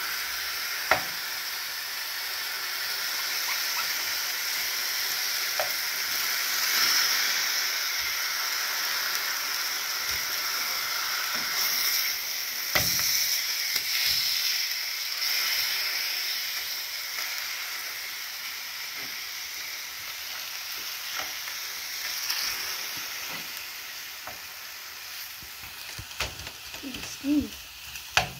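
Frozen ground beef patties sizzling in a dry frying pan, a steady hiss, as a spatula scrapes at the meat to break it up, with a few sharp knocks of the spatula against the pan.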